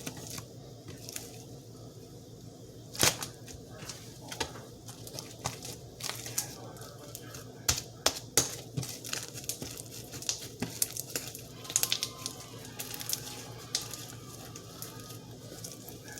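Sticky clear glitter slime being stretched, squished and pressed by hand, giving irregular sticky crackles, clicks and sharp pops.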